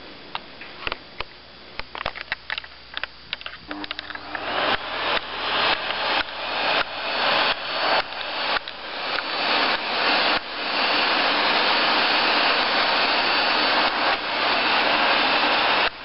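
A few scattered clicks, then a vacuum cleaner's motor starts about four seconds in. Its rush of air rises and drops sharply over and over, then settles to a steady run about ten seconds in.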